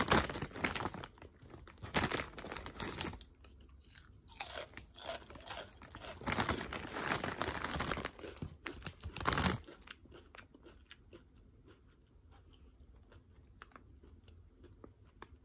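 A deep-ridged Ruffles Double Crunch potato chip being bitten and chewed: dense, crisp crunching for about nine seconds, with a short pause about three seconds in, then fading to faint chewing for the rest.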